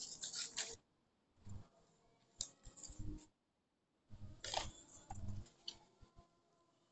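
Sheets of paper rustling and being folded by hand, in several short bursts with silent gaps between.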